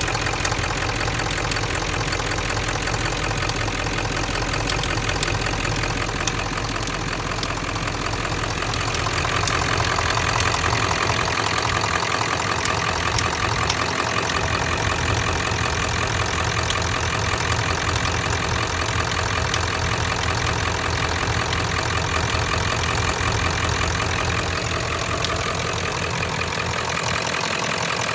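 7.3-litre V8 diesel engine idling steadily with its typical typewriter-like injector clatter, plus a metallic ticking whose cause the owner doesn't know.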